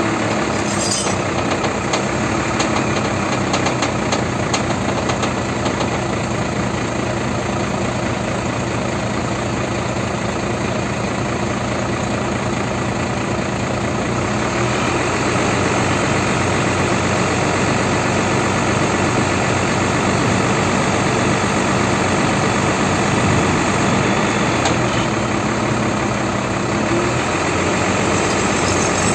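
Hino FM 260 TI truck's diesel engine running steadily to power the loader crane while its control levers are worked, a little louder from about halfway.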